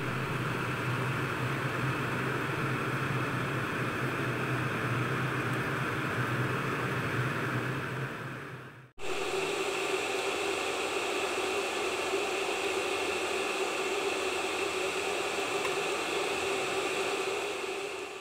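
Bakwan sayur (vegetable fritters) deep-frying in hot oil in a frying pan: a steady sizzle with a faint steady hum under it. The sound cuts out suddenly for a moment about nine seconds in, then the sizzling carries on.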